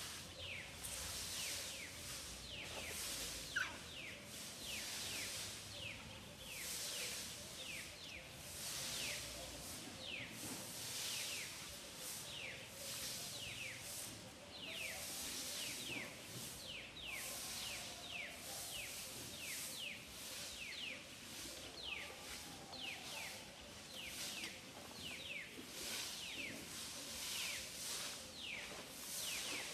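Outdoor wildlife ambience: a pulsing high hiss of calling animals with short falling chirps repeated about once or twice a second.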